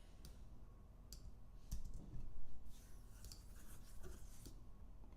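A handful of irregular clicks from a computer mouse and keyboard while code is copied over.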